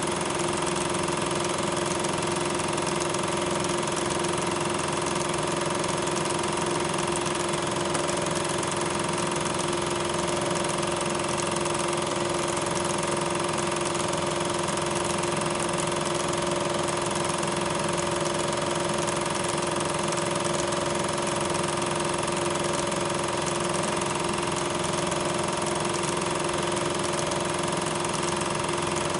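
Steady machine-like running noise: a constant hum over a broad hiss, unchanging in level and pitch.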